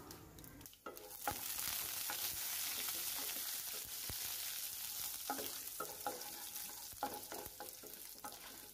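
Chana dal and urad dal sizzling in hot oil with mustard seeds in a non-stick pan, the sizzle starting about a second in. A spatula stirs through them, with short scraping clicks in the second half.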